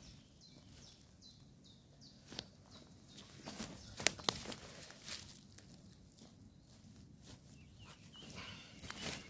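A tent stake being planted in the ground, heard as a few sharp clicks and knocks, the loudest two in quick succession about four seconds in. Faint bird calls sound behind.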